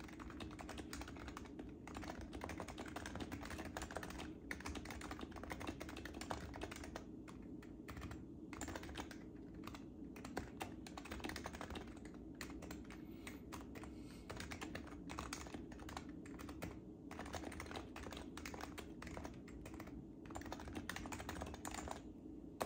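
Continuous fast typing on an HHKB Professional JIS Type-S keyboard with silenced Topre electrostatic capacitive switches: a dense run of soft key presses, broken by a few brief pauses.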